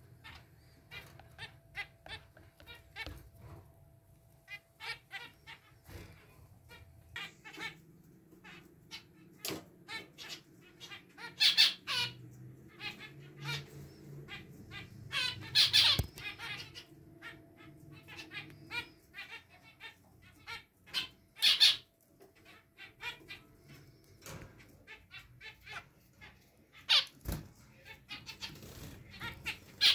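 Zebra finches calling: a steady stream of short, sharp calls, with a handful of louder ones standing out.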